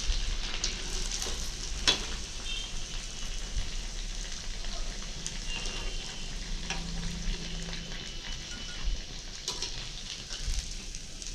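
Sabudana (sago) and potato cutlets deep-frying in hot oil in a kadai, a steady sizzle with fine crackling, as a slotted steel skimmer stirs and lifts out the golden-brown cutlets. A single sharp knock about two seconds in.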